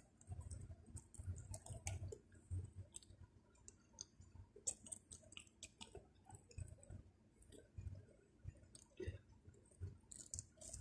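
Faint chewing of pizza, with irregular small mouth clicks and soft low thumps.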